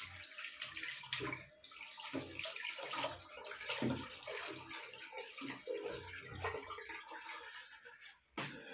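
Water splashing at a sink as the face is rinsed with cupped hands after the first shaving pass, a string of irregular splashes about once a second.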